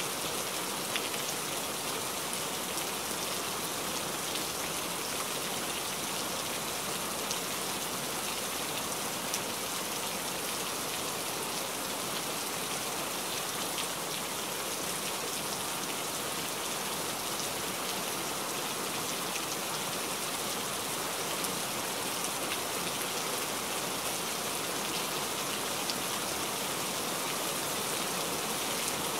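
Steady heavy rain falling on broad-leaved forest foliage: a dense, even hiss with scattered sharper drop ticks.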